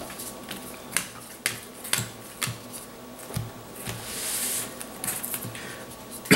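Trading cards being taken from the deck and laid one by one onto playmats: a string of light, irregular taps and clicks, with a brief slide of cards across a mat about four seconds in.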